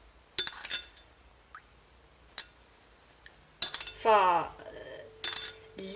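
A few separate light clinks of a kitchen utensil against a dish, spaced a second or two apart.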